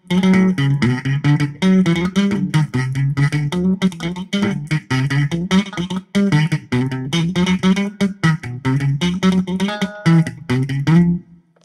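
Electric guitar played through a Zoom 506 bass distortion pedal: a distorted riff of fast, repeated picked notes that stops abruptly shortly before the end.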